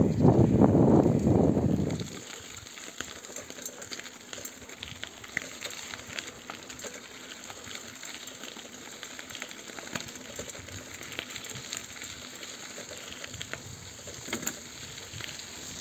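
For about two seconds, wind buffets the microphone of a bicycle-mounted phone while it rides along. Then a quieter, crackly hiss with fine ticks follows: bicycle tyres rolling over a loose gravel track.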